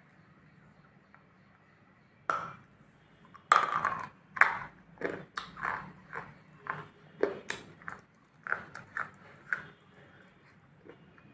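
Close-up biting and chewing of a thick, dark black piece that is powdery and soft with a thin crunchy outer layer. There is one bite a little after two seconds in, then crisp crunches at about two a second that stop shortly before the end.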